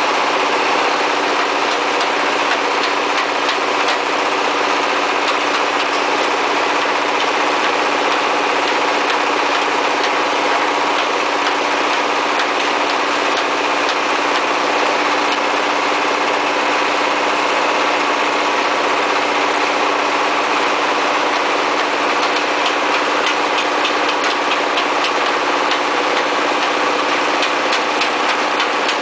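Brick-making machine driven by a 24 hp diesel engine, running steadily with a constant hum. Many light clicks and clatters ride over it, coming more often in the last few seconds.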